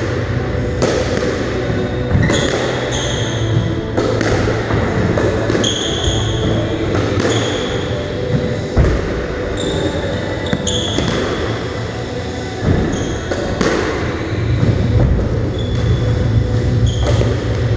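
Squash rally: the ball striking rackets and the court walls in an irregular string of sharp smacks, with trainers squeaking briefly on the wooden floor again and again. A steady low hum runs underneath.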